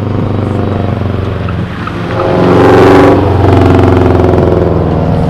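A car engine running hard, swelling loud about two seconds in and peaking near three seconds before easing off, as the car accelerates past.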